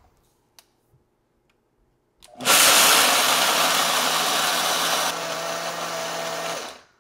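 Vitamix blender grinding dry kibble into powder, starting about two seconds in, running loud for about four seconds, stepping down in level near the end, then stopping.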